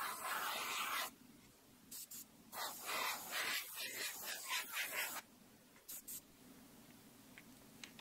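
Gravity-feed airbrush spraying paint in hissing bursts: a long burst at the start, two short puffs about two seconds in, a longer uneven burst from about two and a half to five seconds, and two brief puffs near six seconds.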